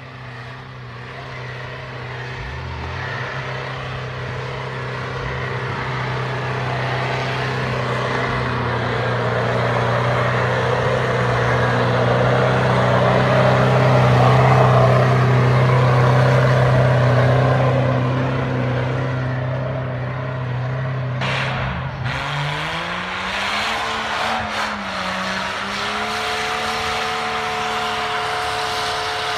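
Toyota Hilux Surf 3.0 turbo-diesel held at high, steady revs as it churns up a deep-snow slope with its wheels spinning, the rush of tyres throwing snow over the engine note, growing louder to a peak about halfway and then easing. A little past three-quarters of the way in, the sound changes to a Jeep Cherokee 4.0 engine revving up and then holding steady.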